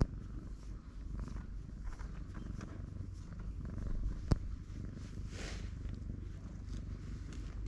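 Brown tabby-and-white cat purring loudly and steadily while its chin and throat are scratched. A single sharp knock about four seconds in is the loudest moment.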